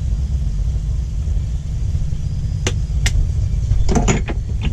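A steady low rumble of running machinery, with sharp clicks about three seconds in and a short run of knocks near the end as spice jars are handled at a cabinet.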